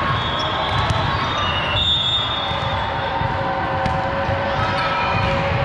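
Volleyballs being struck and bouncing on a hard court floor, over a steady background of crowd chatter.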